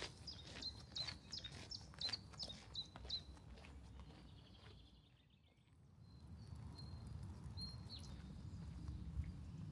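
Footsteps crunching on a gravel path, steady and fading as the walker moves away over the first few seconds. Then quiet forest ambience with a faint low rush and a brief bird chirp.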